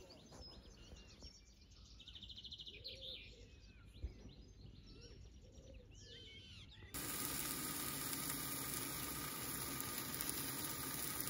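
Wild birds singing and calling, with short gliding notes and a rapid trill, for about the first seven seconds. Then the sound cuts abruptly to a louder, steady hiss.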